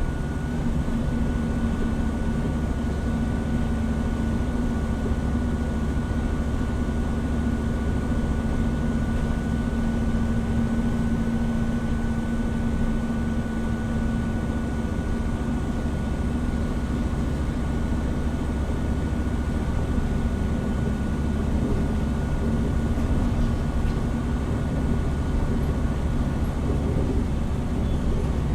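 Hino Rainbow HR diesel route bus heard from inside the cabin, cruising with a steady engine drone over low road rumble and a faint steady whine.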